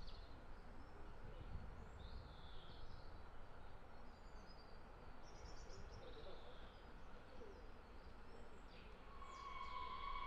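Small birds chirping over a quiet low background rumble. About nine seconds in, the whistle of the approaching steam locomotive Tornado, a Peppercorn A1 Pacific, starts as one steady shrill tone.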